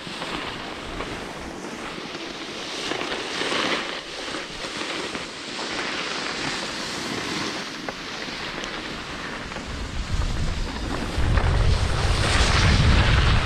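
Skis sliding and scraping over groomed snow, the hiss swelling and fading in surges. About ten seconds in, heavy wind buffeting on the helmet camera's microphone adds a low rumble.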